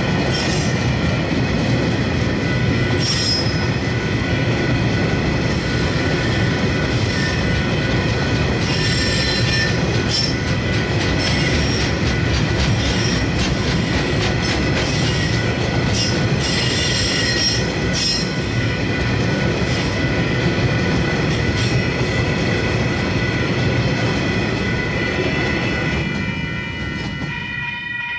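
Freight train rolling past with a steady heavy rumble, its wagon wheels squealing on the rails in repeated high bursts. The noise falls away about 26 seconds in.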